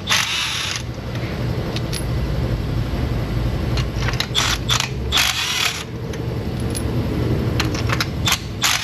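Short bursts of metallic rattling and clicking from hand tools and parts being handled during engine work, over a steady low hum.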